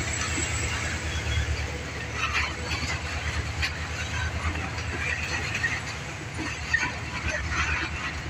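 A moving passenger train: a steady low rumble with scattered short squeaks and clicks.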